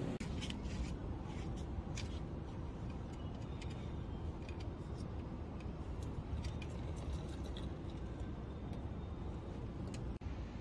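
Outdoor city background: a steady low rumble with scattered faint clicks and ticks.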